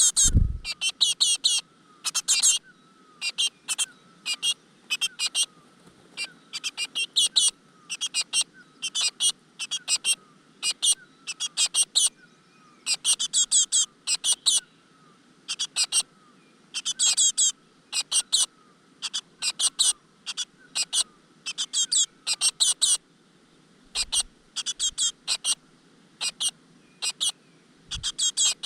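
Great tit nestlings begging: high-pitched, rapid chirps in short bursts, repeated over and over. There is a low bump right at the start.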